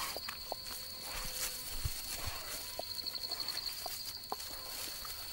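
A night insect trilling steadily at one high pitch, with scattered soft ticks and crunches of a Tasmanian devil chewing on a wallaby carcass.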